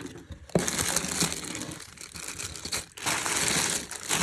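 Packaging crinkling and rustling as it is handled during unboxing, in two spells that begin about half a second in, with a short break about three seconds in.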